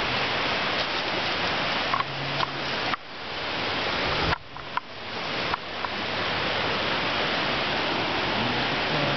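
Steady rushing noise of a rocky river, broken by a few faint clicks and two brief dips, about three and four-and-a-half seconds in.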